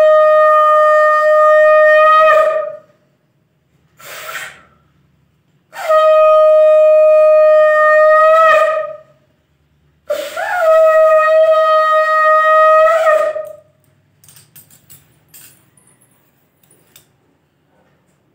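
Conch shell (shankha) blown three times, each a long steady note of about three seconds, with a breath drawn between the first and second blasts. A few faint clicks and rustles follow.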